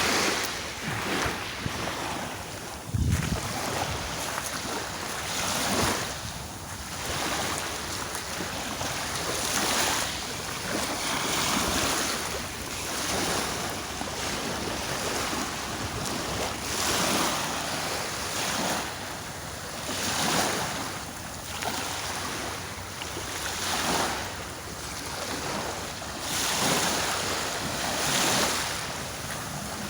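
Sea waves washing onto the shore, the surf swelling and falling back every few seconds. Wind buffets the microphone, with a brief low rumble about three seconds in.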